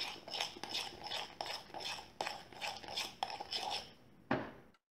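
Metal spoon stirring thick, foamy slime in a glass bowl, the spoon clinking and scraping against the glass about three times a second. One last stroke comes just after four seconds in, then the sound cuts off suddenly.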